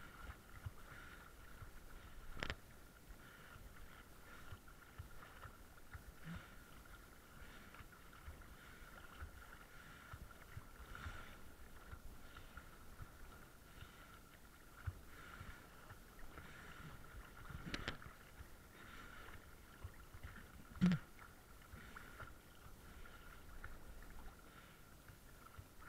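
Sea water sloshing and lapping against a camera riding at the surface, heard muffled, with a faint steady whine throughout and a few dull knocks, the loudest near the end.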